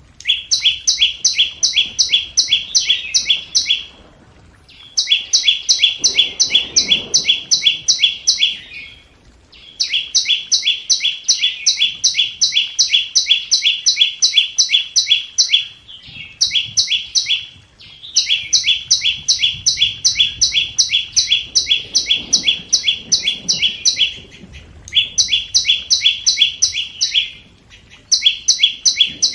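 Flowerpecker lure call: bursts of rapid, evenly repeated high notes, about four a second, each burst lasting from one to several seconds with brief pauses between, seven bursts in all.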